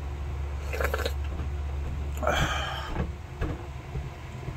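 Slurping sips of soup broth drunk straight from a bowl, the loudest a little past halfway, then a few short swallows.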